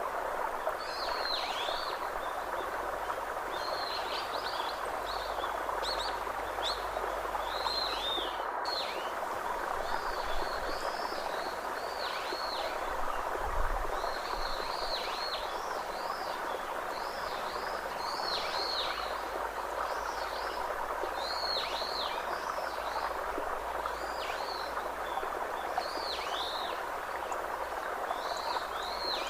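Birds calling in outdoor ambience: short high notes that sweep down in pitch, repeated every second or two, over a steady rushing background noise.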